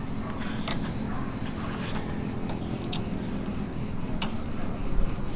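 Hands working a plastic fuel pump electrical coupler into its socket: light rubbing and handling sounds with two faint clicks, about a second in and near the end, over a steady background hiss.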